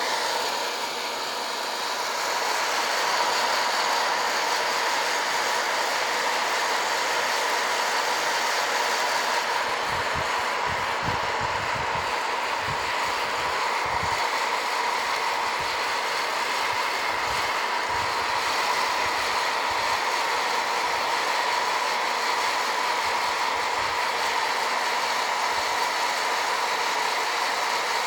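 Hot-air popcorn popper roasting green coffee beans: its fan runs with a steady whir and a constant hum, the beans not yet at first crack. Low thumps come and go about a third of the way in.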